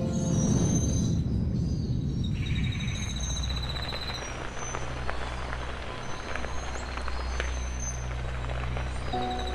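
A fire burning with a sudden rush and then scattered crackles, over a low steady drone. A fast high-pitched trill sounds for about two seconds near the start.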